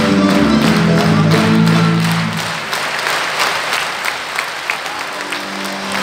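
Georgian folk band music on accordions, guitar and hand drum ends about two and a half seconds in, with audience applause that carries on after the music stops. A single held note comes in near the end.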